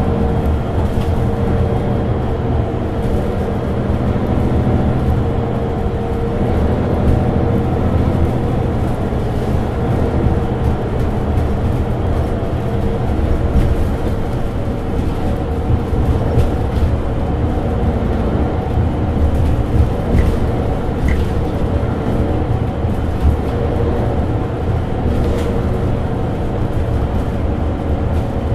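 Mercedes-Benz Citaro 2G articulated bus standing with its engine idling: an even, steady low running sound with no revving, and a few faint clicks over it.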